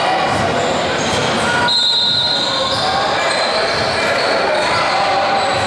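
Gymnasium ambience at a basketball game: a basketball bouncing on the hardwood court amid crowd and bench chatter, with short high sneaker squeaks now and then, all in the reverberant hall.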